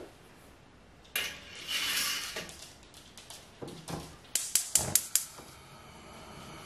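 Gas stove burner being lit: the spark igniter clicks about six times in quick succession, then the burner catches and hisses steadily under a copper pot. A short noisy rush comes about a second in.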